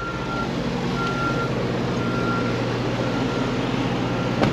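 A truck's reversing alarm beeping about once a second over the steady hum of a running truck engine, with one sharp knock near the end.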